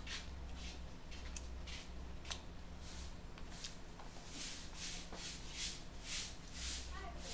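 A man eating fried noodles up close: short, hissy chewing and slurping smacks, coming about twice a second in the second half, over a steady low hum.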